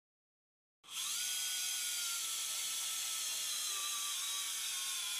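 Synthes TRS Modular Drive power driver running, a steady high whine that starts about a second in, its pitch sagging slowly as it drives a 2.5 mm K-wire into a synthetic tibia model.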